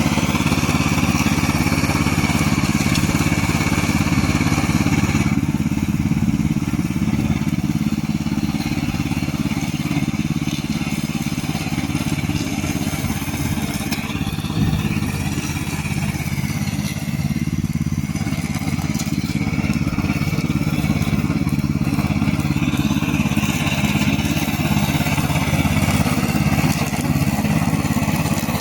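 Remote-control tracked lawn mower running steadily under a constant low engine hum, with a higher whine that shifts in pitch several times as the machine works.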